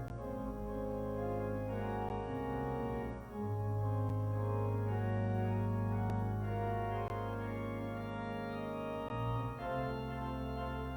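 Church organ playing slow, sustained chords over a deep bass line, the harmony changing every second or two.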